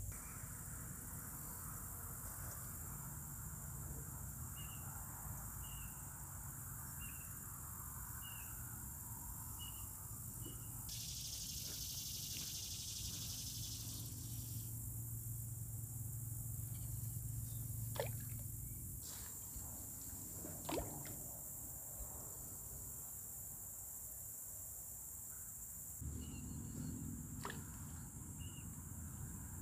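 Outdoor ambience with a steady high insect drone, a short chirp repeated about once a second, and a low rumble. A few sharp clicks and a brief buzz in the middle.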